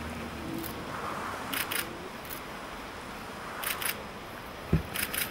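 Still-camera shutters firing in quick double clicks, three times a couple of seconds apart, over a steady low hiss; a single low thump comes shortly before the last clicks.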